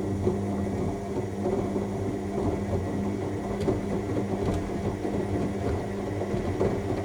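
AEG 7000 Series washing machine in the main wash of a Cottons 60 cycle: the drum motor hums steadily as the drum turns the load, with a rough churning noise and a few faint clicks.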